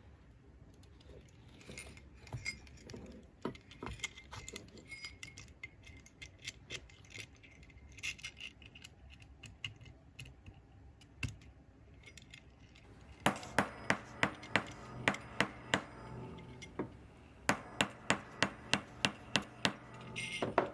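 Small metal sleigh bells clinking and jingling as they are handled on a leather belt. Later come two runs of sharp, evenly spaced strokes, about three a second, one past the middle and one near the end.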